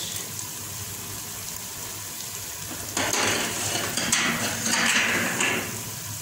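Kitchen sounds from a pot of eggplant and green peppers cooking on the stove: a low steady sizzle, then, about three seconds in, a couple of seconds of louder hissing with a few light clinks of dishes.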